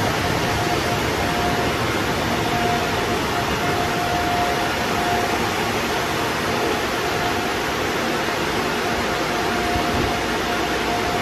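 Car wash air dryer blowers running at the drying stage of a touchless automatic wash: a loud, even rush of air with a steady whine from the blower fans.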